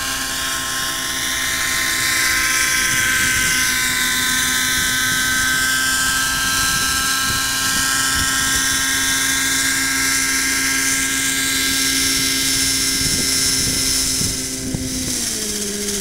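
Miniature Aircraft X-Cell 90 RC helicopter's glow-fuel engine and rotors running at a steady high pitch in flight. Near the end the level drops and the pitch falls as it throttles down to land.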